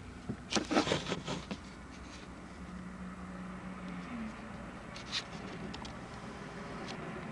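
A quick run of clicks and rustles as a handheld camcorder is handled and moved inside a car's cabin, followed by a faint low steady hum and a couple of single clicks.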